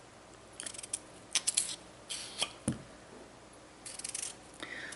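Kitchen knife cutting through raw russet potatoes on a cutting board: several short slicing scrapes and knocks, with one sharper knock of the blade on the board a little under 3 seconds in.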